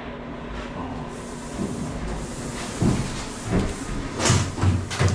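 A hand patting and knocking on a newly installed granite countertop: five or so dull knocks in the second half.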